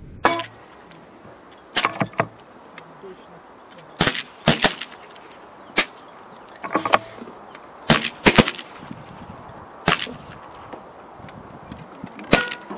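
Air rifles firing on a shooting line: a dozen or more sharp, short shots at irregular intervals, some in quick pairs.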